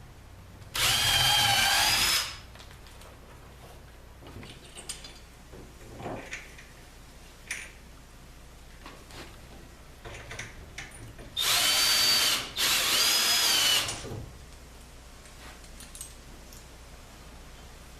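Power drill boring pilot holes into wooden ceiling rafters for lag screws, in three short runs: one about a second in, then two back to back later on, its motor whine dipping and rising as the bit bites.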